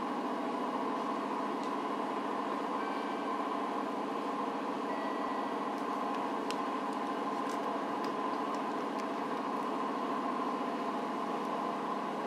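JR Kyushu 305 series electric train standing in the station, its onboard equipment giving a steady hum, with a few faint clicks.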